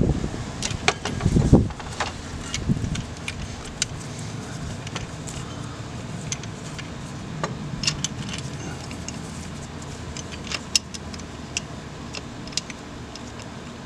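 Scattered light metal clicks and clinks as a replacement vacuum pump is turned and worked into its mounting by hand, with a few dull knocks in the first two seconds.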